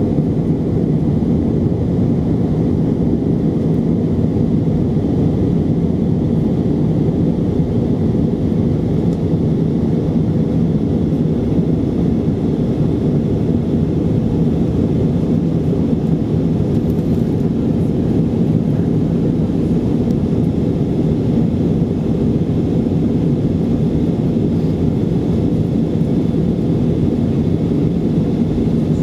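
Airbus A320 engine and airflow noise heard inside the passenger cabin as the jet climbs out after take-off: a low, steady rumble that does not change, with a faint constant hum in it.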